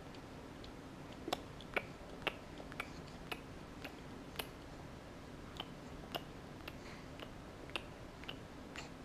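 A baby sucking on a pacifier, making short, soft clicks roughly twice a second with a few pauses, over a low steady hum.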